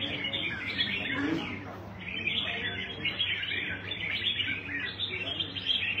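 Caged red-whiskered bulbuls singing and chirping over one another in a dense chorus, with a short lull about one and a half seconds in.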